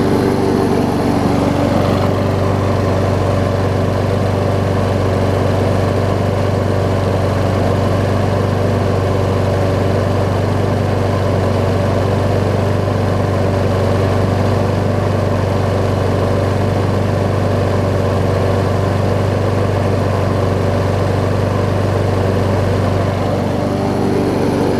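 Kohler XT7 Courage single-cylinder engine on a walk-behind push mower running steadily after a cold start, with its automatic choke now opened.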